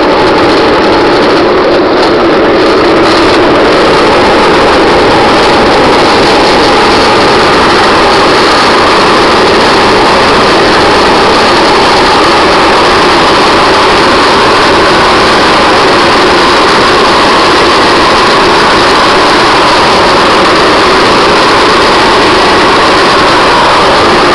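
Loud, steady rush of wind and wheels rolling on asphalt while riding downhill at speed, unchanging throughout.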